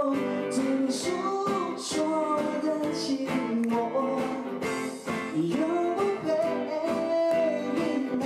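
A live band plays a song: one singer with electric guitar and a steady drum beat.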